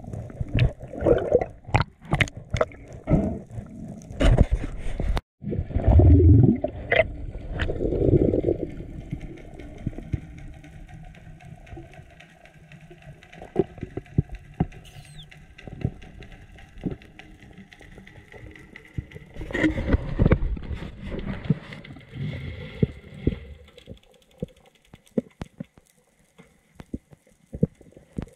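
Underwater sound from a GoPro in its housing during a freedive descent: muffled knocks, clicks and water rushing past the camera. It is busiest in the first eight seconds, goes quieter, and picks up again about twenty seconds in.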